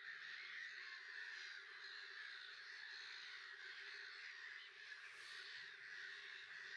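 A steady, faint chorus of many birds calling in the distance, with no single call standing out.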